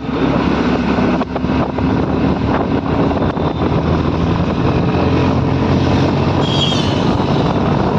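Bajaj Pulsar NS125 motorcycle riding at speed, heard through a phone microphone inside the rider's helmet: heavy wind rush over the single-cylinder engine's steady drone. A brief high chirp comes near the end.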